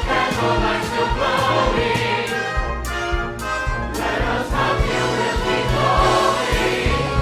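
Music with a choir singing over instruments and a steady beat.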